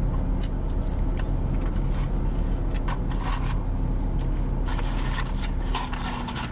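Rustling of paper fast-food packaging and eating noises. Scattered clicks and crackles build to a longer stretch of rustling about five seconds in, over the steady low hum of a car's idling engine.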